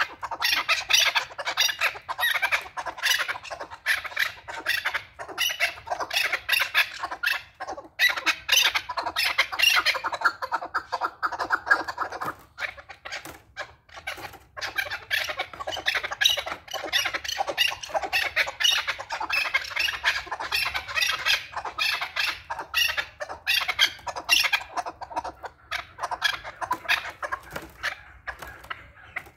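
Male chukar partridge calling: a fast, continuous run of short clucking notes, with a brief lull about thirteen seconds in.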